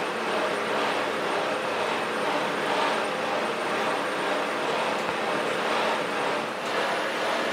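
Steady machinery noise: a continuous drone with a low hum and no distinct strokes or impacts.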